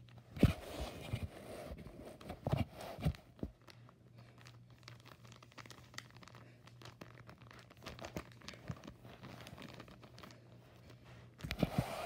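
Clear plastic sheeting spread over carpet crinkling and rustling as a hand and a cockatiel move on it. There are loud bursts of crackling in the first few seconds and again near the end, with lighter crackles and ticks in between.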